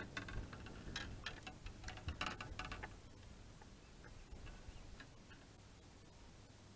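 A quick run of light clicks and rattles from fishing gear as a fish is netted over the side of a boat, easing off after about three seconds into a few faint ticks.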